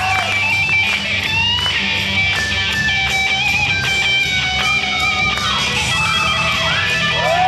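Electric guitar played live through an amplifier: a fast lead line with string bends that slide up and down in pitch.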